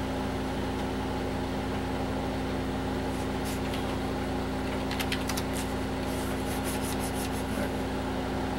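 A short run of computer keyboard keystrokes clacking a few seconds in, over the steady hum of a running 486 desktop computer.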